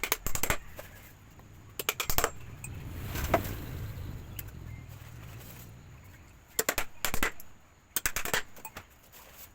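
Quick bursts of sharp knocks or clicks in woodworking, several in rapid succession, coming in four groups with pauses between them.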